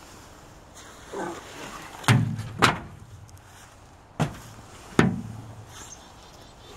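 Aluminum canoe hull being knocked and handled: four loud, hollow thuds in two pairs, each with a short low ring, after a softer bump near the start.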